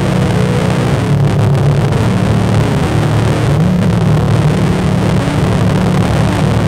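Loud, dense drone: a steady low hum with a few tones above it slowly drifting in pitch, under a constant noisy hiss.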